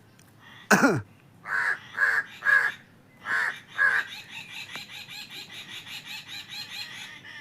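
Crows cawing: a loud call falling in pitch about a second in, then five caws in quick succession. From about four seconds a fast, even chatter of roughly six pulses a second takes over.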